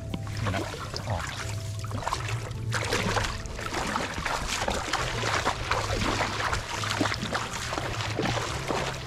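Water splashing and sloshing in irregular strokes, over a steady low hum.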